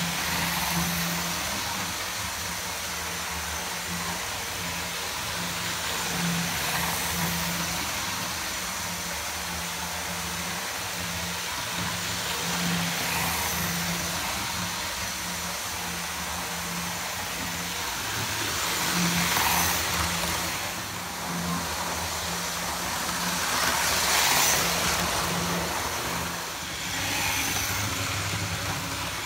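Hornby APT model train running on its track: a steady electric-motor hum with wheel rumble, growing louder several times as the train passes close by.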